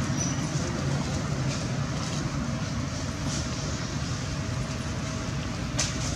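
Steady low rumble of outdoor background noise, with a few faint clicks and rustles scattered through it.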